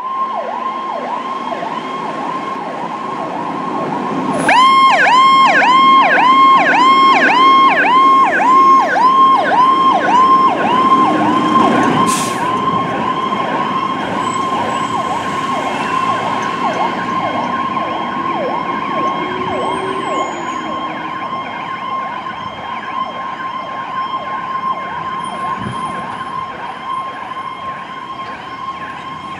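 Fire engine siren on a 2019 Pierce Enforcer pumper responding: a steady high tone, joined about four seconds in by a siren sweeping up and down about twice a second. It is loudest as the truck pulls out and passes, then slowly fades as it drives away.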